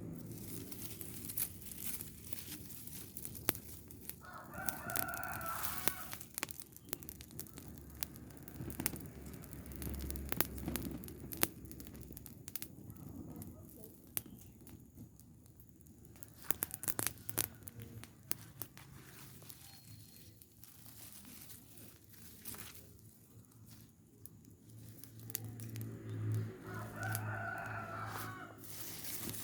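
A rooster crowing twice, about four seconds in and again near the end, each crow lasting about a second and a half, over scattered crackles and clicks.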